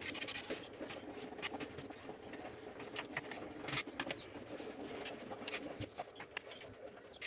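Kitchen knife slicing hot dogs on a plastic cutting board: irregular light taps of the blade against the board, over a faint steady background hum.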